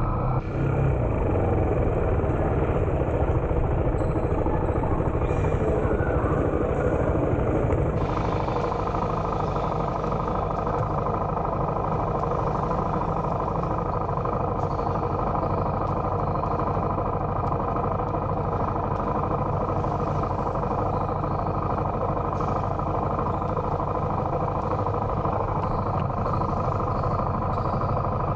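A vehicle engine running steadily with continuous road noise, as heard while riding along.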